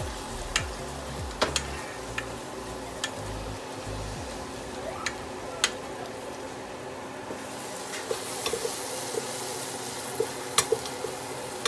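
Onions frying in oil with a steady sizzle while a wooden spatula stirs them, now and then knocking against the side of the pot. About two thirds of the way in the sizzle gets louder and brighter.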